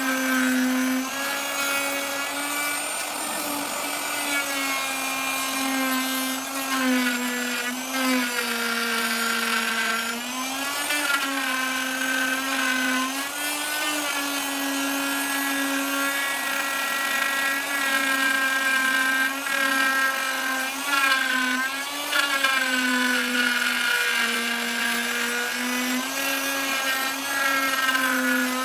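Ryobi electric router running and cutting into pine, routing out a recess in the back of a clock blank: a steady high motor whine whose pitch dips several times and recovers as the bit bites into the wood.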